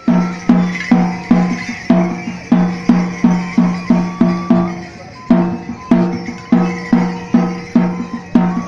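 Drum music: a drum with a clear pitched note beaten in a steady rhythm, a little over two strokes a second, with a thin high melody line above it. The drumming eases off briefly about halfway through, then resumes.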